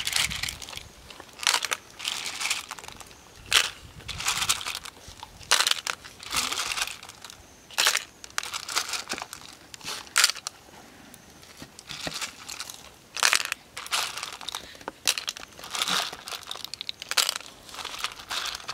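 Hard shellfish shells dropped by hand into a steel wok, clicking and clattering against the metal and against each other at irregular moments, about every second or two.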